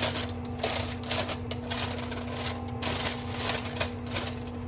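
Parchment paper crinkling and rustling as it is gripped and pushed around inside an enamel Dutch oven: a quick, irregular run of crackles over a steady low hum.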